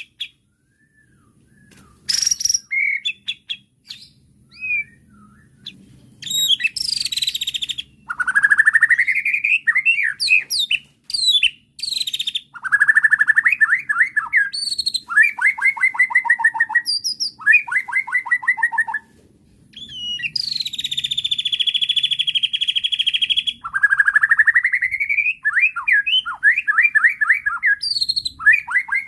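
White-rumped shama (murai batu) singing an agitated, varied song: a few scattered notes at first, then rising whistled glides, rapid trilled phrases and a long buzzy rattle past the middle, separated by short pauses.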